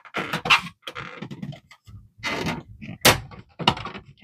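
Plastic side panel of an Epson WF-2860 printer being pried with a flathead screwdriver and pulled back: several short scrapes and rubs of plastic, then a sharp click about three seconds in as the panel's latch lets go.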